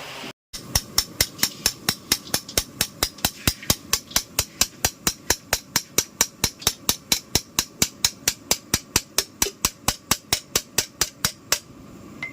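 A steady, even series of sharp knocks or taps, about four to five a second, that stops about a second before the end.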